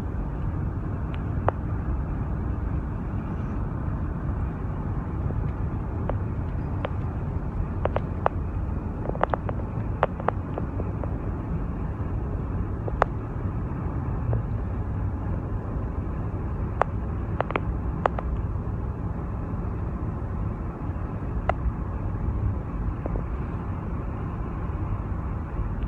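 Steady road and engine noise inside a moving car's cabin, with a few scattered short clicks.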